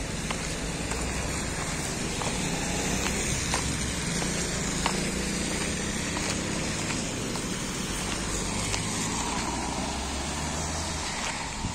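Road traffic on a rain-wet road: car engines running with a low hum and tyre noise from passing vehicles. The low hum stops near the end.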